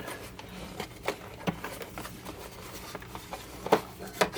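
A few separate clicks and knocks of plastic vacuum-cleaner parts being handled, the loudest about four seconds in, over a faint steady hum.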